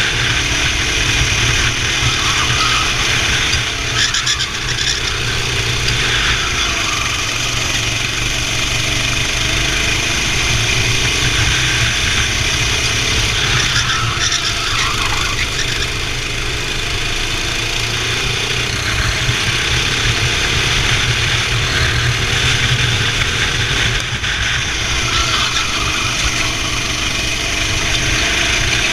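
Kart engine running hard, its pitch rising and falling again and again as the kart accelerates and backs off through the turns.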